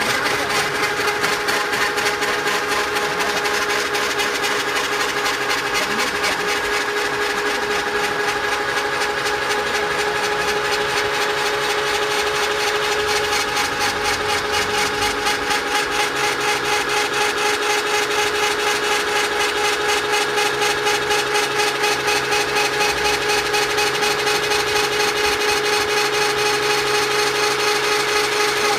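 Electric motor and gearbox of a mast-mounted rotary auger drill running steadily under load as the spiral auger bores into the ground, a steady whine with a fast, even pulse.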